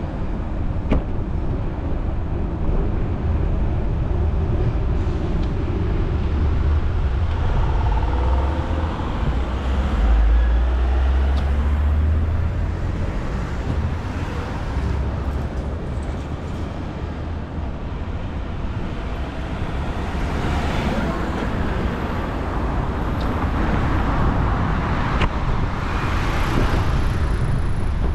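Street traffic heard while cycling through city streets: cars going by over a steady low rumble of wind on the microphone. A passing vehicle swells up louder in the last third.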